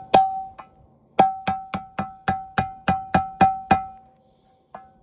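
Repeated sharp strikes on metal, each leaving a short ringing tone. Two blows come first, then a quick run of about nine at three to four a second, then one more near the end.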